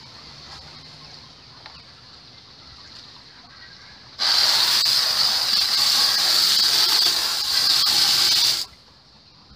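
Garden hose spray nozzle spraying water onto worm-bin bedding: a steady hiss that starts suddenly about four seconds in and cuts off abruptly about four and a half seconds later.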